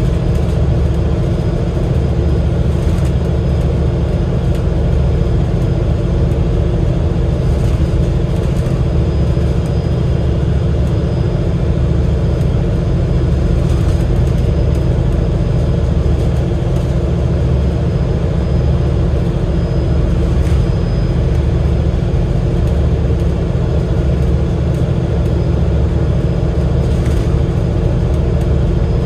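Enviro500 MMC double-decker bus under way, its Cummins L9 inline-six diesel and drivetrain running steadily: a heavy, even low rumble with a few steady tones above it.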